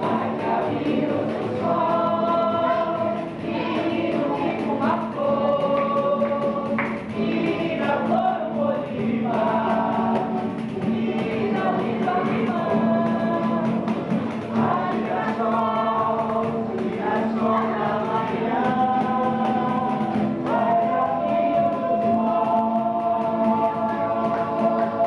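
A group of voices singing together in long, held phrases.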